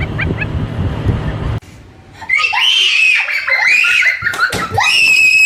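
Loud, high-pitched screaming, starting about two seconds in after a brief low rumble with voices, and cut off sharply at the end.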